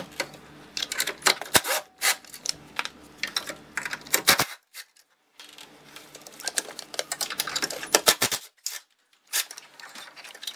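Cordless power driver with a socket, motor whirring with rapid clicking, as it undoes the 13 mm hold-down bolts. It runs in three spells, with short pauses about four and a half and eight and a half seconds in.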